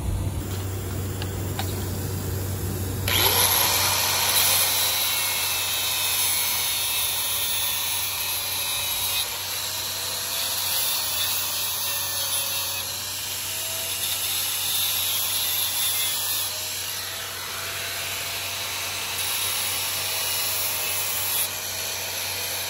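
Handheld power grinder gouging a groove along a crack in an Evinrude outboard's aluminum lower-unit gearcase, opening it up for welding. It starts about three seconds in and runs on as a steady, harsh hiss over a slightly wavering motor pitch.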